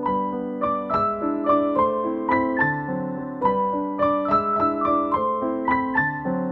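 Background keyboard music in a piano sound: a gentle, flowing run of single notes, a few each second, over held lower notes.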